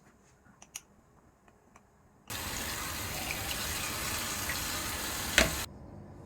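A few faint clicks, then a water tap runs full for about three and a half seconds and is shut off abruptly, with a sharp knock just before it stops.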